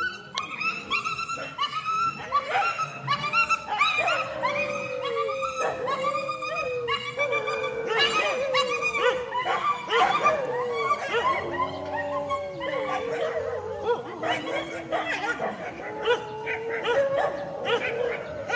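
Dogs yelping and barking in quick succession over a long, wavering whine.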